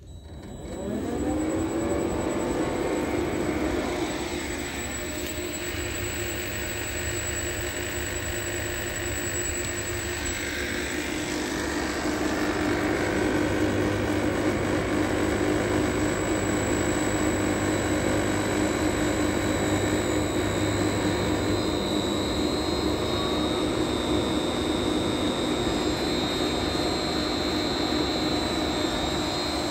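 Electric motor driven by a Siemens Micromaster 440 frequency inverter on test, speeding up over the first couple of seconds and then running steadily. A high-pitched electrical whine from the drive's switching rides on top and grows stronger in the second half.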